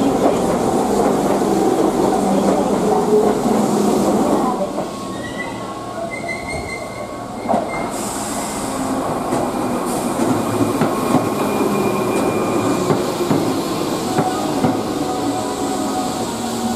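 Keihan electric train moving along the station platform: steady wheel and running noise, with short high squeals about a third of the way in and a sharp knock just after.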